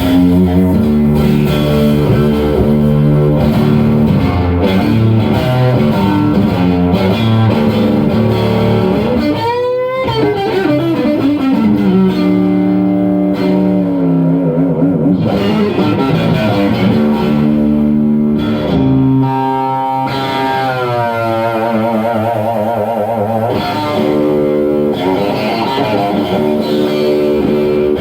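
Electric guitar played through a Santa Cruz Sound amp head: chords and single-note lines, with a quick pitch swoop up and back down about ten seconds in and wide vibrato on held notes a little past twenty seconds.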